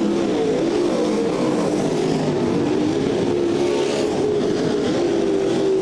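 A field of winged dirt-track sprint cars racing at speed: several V8 engines running together at high revs, their pitches overlapping and weaving up and down as the cars work through the turns.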